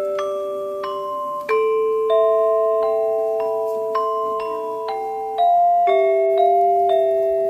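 Background music: a gentle melody of struck, ringing mallet-instrument notes, one after another, with no speech.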